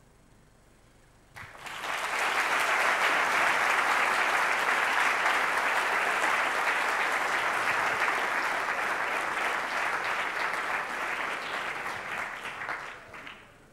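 Audience applauding. The clapping starts about a second in and tapers off near the end.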